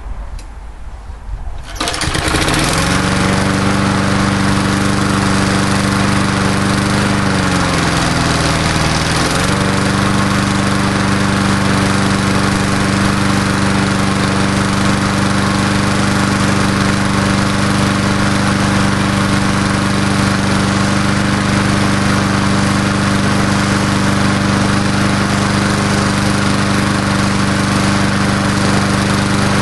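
Single-cylinder Briggs & Stratton 3.75 hp engine on an old Murray Dynamark 22 push mower catches about two seconds in and then runs steadily. Its speed sags briefly and recovers a few seconds later. This is its first run after sitting unused for about seven years.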